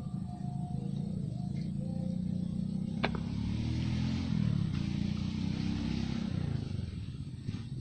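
A road vehicle passing: a steady low engine rumble that swells through the middle and fades toward the end, with one sharp click about three seconds in.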